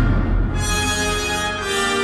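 Orchestral music played back through Tyler Woodmere II floor-standing hi-fi loudspeakers, picked up by a phone's microphone in the listening room. A deep low rumble fades out in the first half second, leaving sustained string and brass notes.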